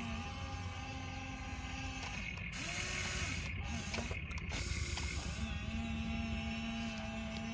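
Electric motors and gearboxes of a Huina remote-control toy excavator whining as the boom, bucket and turntable move, the whine stepping up and down in pitch as each motion starts and stops, over a low steady rumble.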